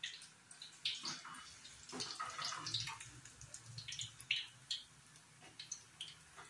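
Medu vada batter deep-frying in hot oil in a steel kadhai: irregular crackling and spitting, with a few louder pops.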